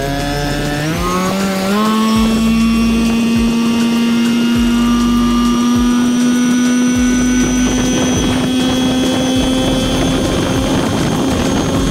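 Outboard motor of an aluminium fishing boat accelerating: its pitch climbs over the first two seconds, then holds steady as the boat runs at speed across the water.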